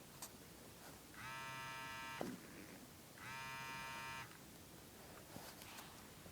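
Two steady, even buzzes, each about a second long with about a second's gap between them, and a few faint clicks around them.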